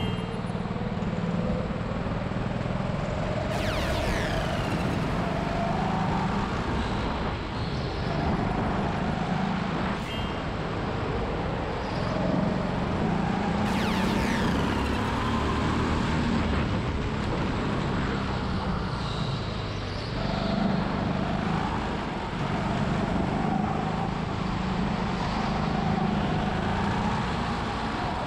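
Go-kart engine running on the driver's own kart, its pitch rising and falling as the throttle opens and closes through the corners. Two brief high-pitched sweeping sounds, about 3.5 and 14 seconds in.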